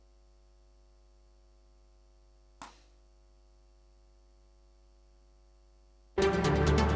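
Faint steady mains hum with a single short click about two and a half seconds in, then playback of an electronic trance track in progress starts abruptly and loudly near the end, with a fast, even pulse.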